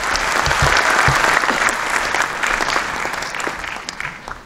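Audience applauding, a dense patter of handclaps that is fullest about a second in and dies away toward the end.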